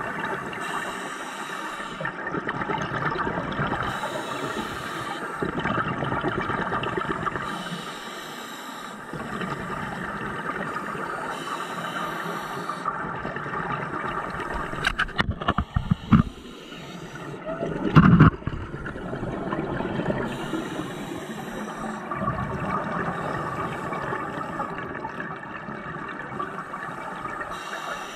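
Scuba diver's breathing through a regulator, heard underwater through a camera housing: a short hiss on each inhale every few seconds, with bubbly rumbling from the exhaled bubbles in between. A couple of sharp knocks about halfway through, the loudest a few seconds later.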